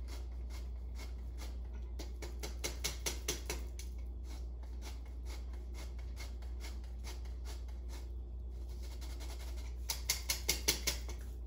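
Hand-held metal flour sifter being worked over a mixing bowl, sifting flour and cocoa powder: a rapid run of scratchy clicks from its mechanism and mesh, louder in short spells about three seconds in and near the end.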